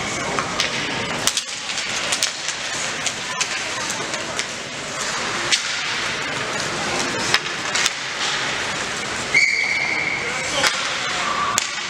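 Youth ice hockey game play in an arena: a steady hiss of skates and background voices, broken by many sharp clacks of sticks and puck, and a referee's whistle blown once, briefly, about nine and a half seconds in.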